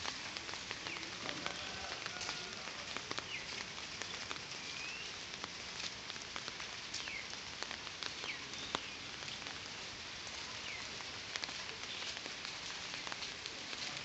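Light monsoon rain falling steadily, with a spray of small drop ticks throughout and a few short chirps now and then.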